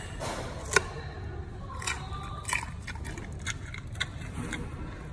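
Giant panda chewing food at close range, with irregular sharp crunches; the loudest comes about a second in. A steady low hum runs underneath.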